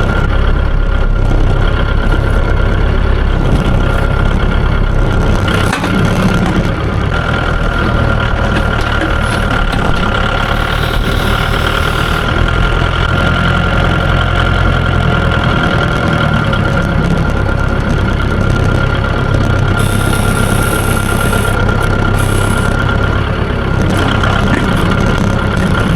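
Mahindra tractor's diesel engine running steadily while driving, with a steady high whine over the engine.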